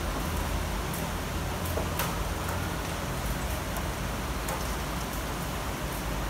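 Steady city rain: an even hiss of falling rain with scattered drops ticking sharply on hard surfaces, over a steady low rumble.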